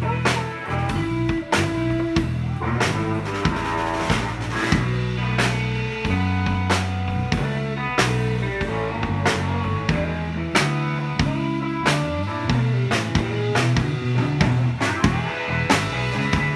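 Live blues band playing: a standing drummer keeps a steady beat on snare, floor tom and kick drum under electric guitar.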